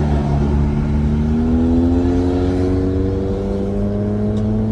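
An older Honda Accord's exhaust, running through a straight 'fart can' muffler with no resonator, gives a loud buzzing drone like an angry beehive. Its pitch climbs slowly as the car accelerates, then holds steady.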